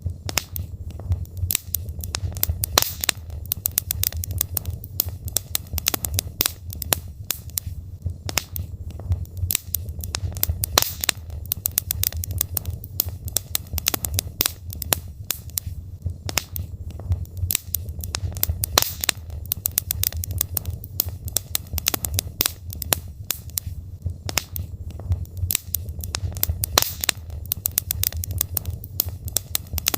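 Logs burning in a fireplace: dense, irregular crackling and popping of the burning wood over a low, steady rumble of the flames.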